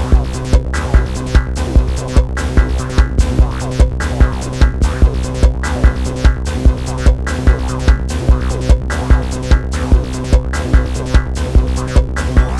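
Electronic techno jam from Moog Sound Studio synthesizers and a Roland TR-6S drum machine: a steady kick drum about two and a half beats a second over a sustained synth bass drone.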